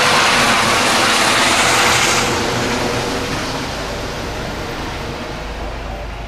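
Eurocopter EC135 twin-turbine rescue helicopter flying away. Its rotor and engine noise is loud and steady, then from about two seconds in it loses its high end and slowly fades as it recedes.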